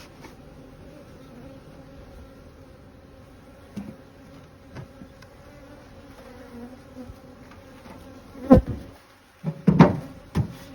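Honeybees buzzing in a steady hum around a hive, with a few light knocks, then several loud knocks near the end as wooden hive boxes (honey supers) are handled and set in place.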